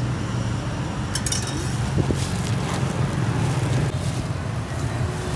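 Steady low hum of street traffic, with a few light clicks from food-stall handling.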